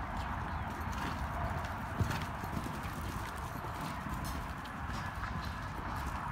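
Hoofbeats of a horse cantering on soft dirt arena footing, a continuing run of muffled thuds, with one sharper knock about two seconds in.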